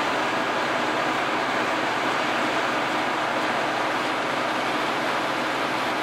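New Holland TX65 combine harvester running steadily while unloading barley through its auger spout into a trailer: a dense, even machine noise with no changes.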